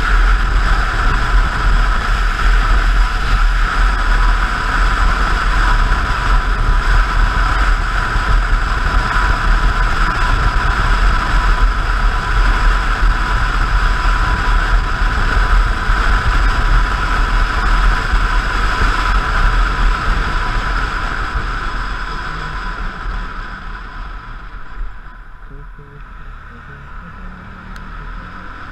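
Motorcycle at road speed, its engine under heavy wind rush. About 22 s in the bike slows, the wind dies away, and the engine runs quieter at low speed.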